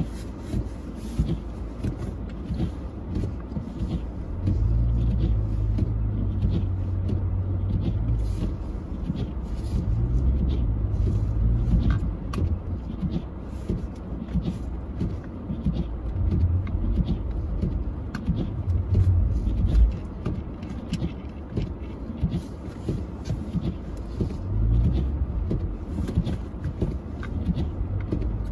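Car engine running with a low rumble. A steady low drone swells in about four seconds in and eases off around twelve seconds, with shorter swells later.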